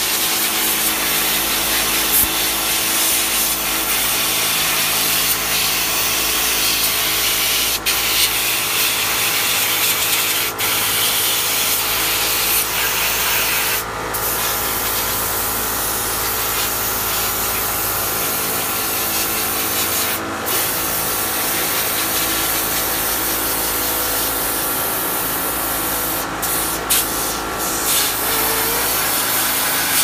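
High-pressure washer spraying water onto an air conditioner's heat-exchanger fins to wash off tobacco tar: a steady hiss of spray with the washer's pump motor humming underneath. The spray breaks off briefly a few times.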